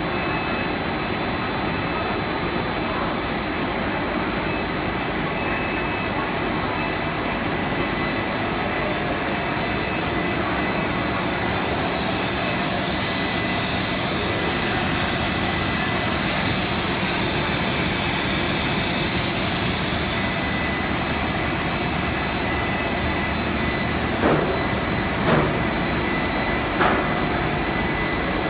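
Cast film extrusion line running: steady, loud machine noise with a hiss and thin high whines. The hiss swells and swirls for several seconds midway, and there are three short knocks near the end.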